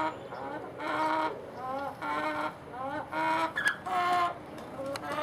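Hen making a strange, repeated call about once a second: each call is a short upward-sliding note followed by a longer held tone. The owner finds the noise unusual and wonders whether she is ill.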